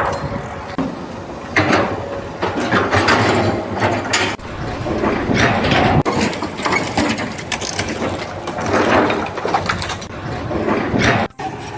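Mechanical clattering and scraping, coming in irregular loud surges, that cuts off suddenly near the end.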